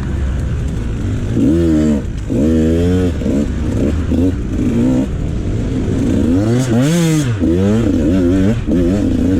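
Dirt bike engines revving up and down again and again, with a higher rising and falling rev about seven seconds in.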